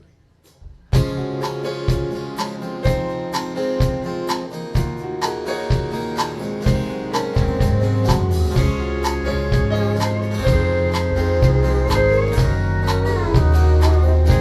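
Live country band starting a song's instrumental intro about a second in, with a steady drum beat; a heavy bass line comes in about halfway through.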